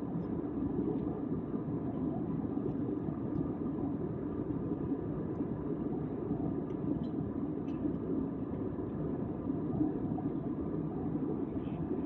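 Steady cabin noise of a jet airliner in cruise flight, heard from inside the cabin: an even rumble that does not change.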